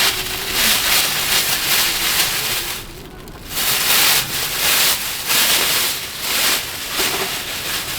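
Plastic waste bag for a folding portable toilet rustling and crinkling as it is handled and fitted. It comes in uneven bursts, with a brief lull about three seconds in.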